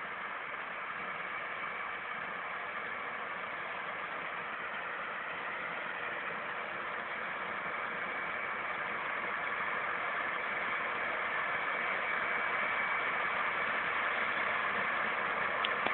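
John Deere 9965 cotton picker running as it harvests, a steady machine drone that slowly grows louder as it comes closer.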